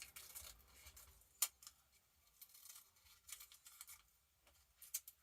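Faint rustling and small clicks of craft materials being handled, with one sharp click about a second and a half in.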